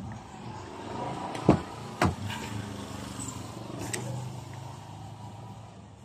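Toyota Vios front door being opened: two sharp clicks about half a second apart from the handle and latch. A steady low hum of street traffic runs underneath.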